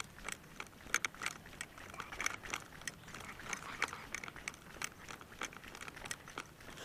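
Walking on a concrete path while carrying fishing rods and tackle: footsteps and gear rattling, heard as irregular sharp clicks a few times a second.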